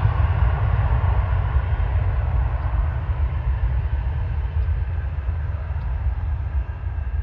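Departing regional jet airliner's engines, a steady deep rumble with a hiss above it that slowly fades.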